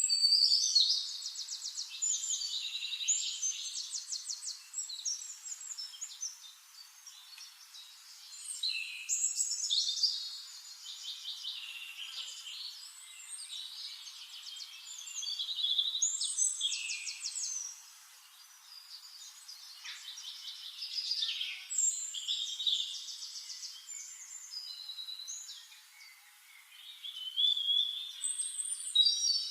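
Songbird singing: long, varied phrases of rapid trills and whistles, each lasting a few seconds, with short pauses between them.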